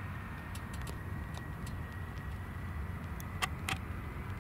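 Boeing 747 jet engines heard from beside the runway: a steady low rumble with a thin whine that slowly rises in pitch. Two sharp clicks sound about three and a half seconds in.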